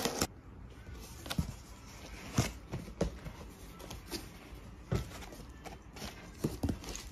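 Corrugated cardboard box being handled and its flaps opened: scattered light knocks and scrapes of cardboard, about one a second.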